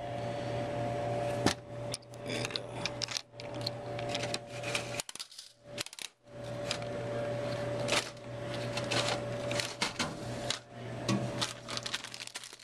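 Clicking and metallic rattling of a Snack King desktop vending machine's coin mechanism and rotary selector knob being turned by hand, over a steady hum that drops out briefly about halfway through.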